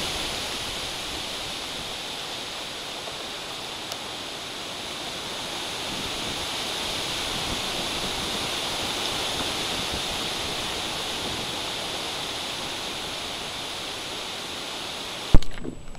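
Storm wind rushing steadily through a tree canopy, swelling in the middle and easing off again. Near the end a sharp knock cuts it off and the sound drops away.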